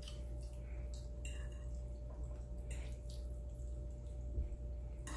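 Wet chewing and mouth sounds of someone eating spaghetti and meatballs, with a few short clicks from a fork working in the pasta on the plate and a soft thump near the end, over a steady low hum.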